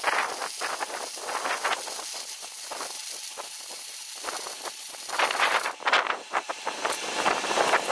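A hand power tool working the steel of a truck rear axle housing, throwing sparks, with a steady hiss that stops suddenly about six seconds in. Irregular gusts of wind on the microphone, stronger near the end.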